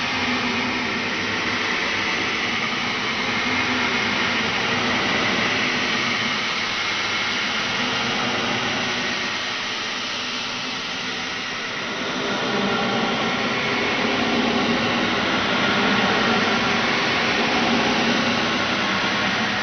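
Horror sound-effect drone: a dense, rushing noise with faint held tones inside it, easing slightly about halfway through and swelling again.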